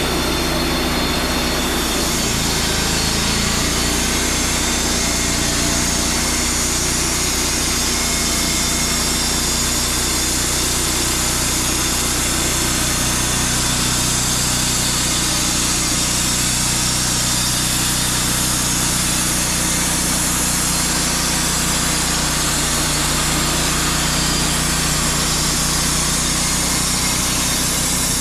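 Wood-Mizer portable bandsaw sawmill cutting a maple log: the mill's engine runs steadily under load while the band blade rasps through the wood. The engine picks up a little speed about two seconds in.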